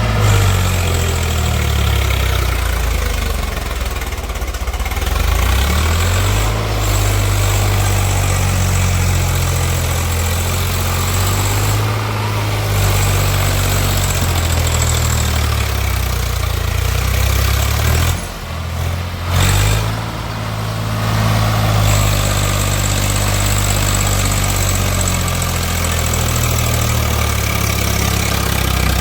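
Heavy diesel engine of a tractor-type machine running at varying speed, its pitch rising and falling as the throttle changes. The level drops briefly twice about two-thirds of the way through.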